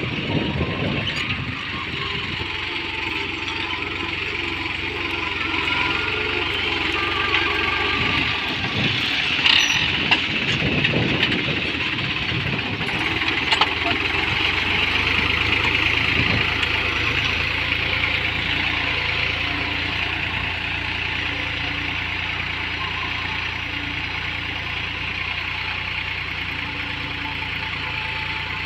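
Diesel tractor engine running steadily, with a few brief knocks around ten and fourteen seconds in.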